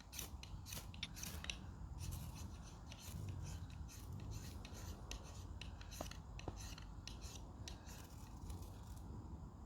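Ferrocerium rod struck repeatedly with a striker to throw sparks onto a tinder bundle: a quick irregular run of short, sharp scrapes, a few a second, that stops near the end.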